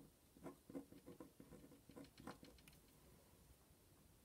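Faint scratching and tapping of a pen writing on paper: a run of short strokes over the first two to three seconds.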